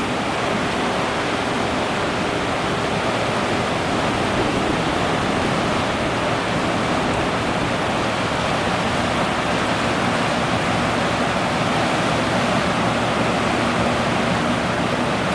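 Steady rushing noise of water and wind, even throughout with no distinct events.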